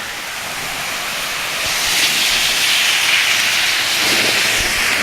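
Heavy rain pouring down in a steady hiss that grows louder about two seconds in.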